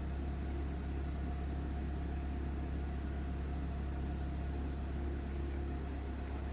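Portable water-well drilling rig and its power generator running steadily: a constant low hum with a faint steady tone above it.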